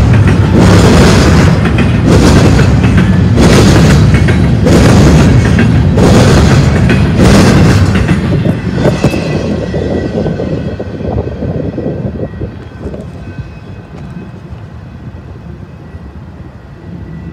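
BNSF double-stack container train rolling past close by: a loud rail rumble with a louder pulse a little over once a second. The last car clears about eight seconds in and the sound fades steadily as the train moves away.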